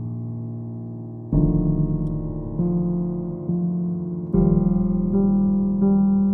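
Slow background piano music, a new chord struck about every second and left to ring and fade.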